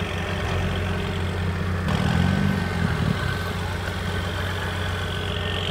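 Turbocharged four-cylinder engine of a VUHL 05 sports car running steadily at low revs, with a brief wavering change in pitch about two seconds in.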